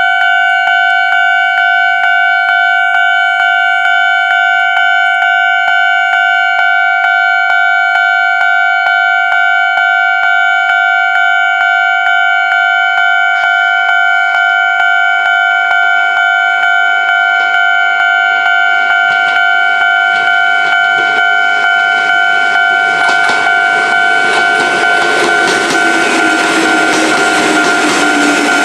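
Japanese railway level crossing's electronic warning bell ringing a steady two-tone ding in a fast, even rhythm. From about 20 seconds in, an approaching train's noise builds and grows louder toward the end.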